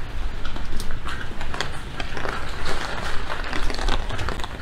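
Rainy city street ambience: many irregular small taps and clicks of rain and wet-pavement sounds over steady low background noise.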